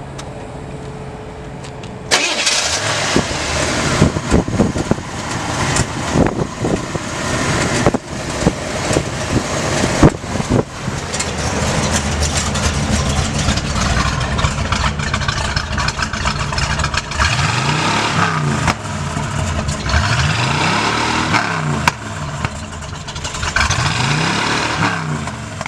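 1975 Buick LeSabre's V8 through its aftermarket dual exhaust, starting up about two seconds in and then running, with several throttle blips that rise and fall in pitch near the end.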